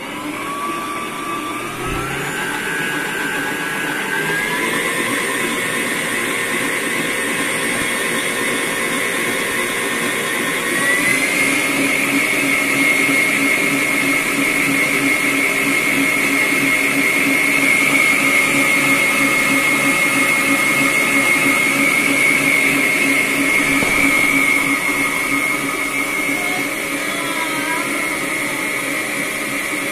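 Sokany planetary-motion stand mixer running with its wire whisk beating cream. Its motor whine steps up in pitch three times over the first eleven seconds as the speed is raised, then holds steady.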